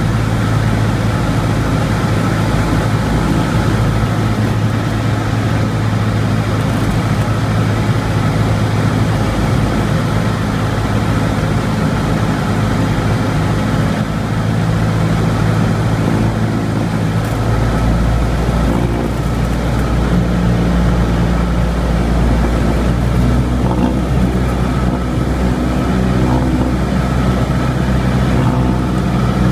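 Cessna 172's piston engine and propeller running steadily, a loud drone heard inside the cabin. The engine note shifts about two-thirds of the way through, as with a change of power.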